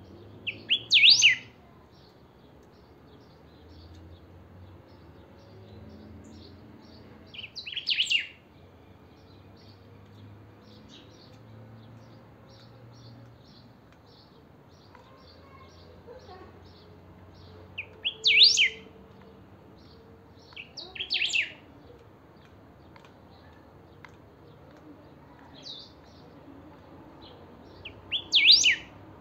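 Caged picahueso (saltator) singing: about five short, loud song phrases spaced several seconds apart, with soft high chips between them.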